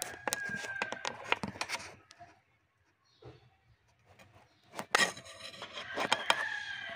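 Handling noise of a camera being fitted into position: clicks, knocks and rubbing in two bursts, the first over the opening two seconds and the second starting about five seconds in, with a near-quiet gap between.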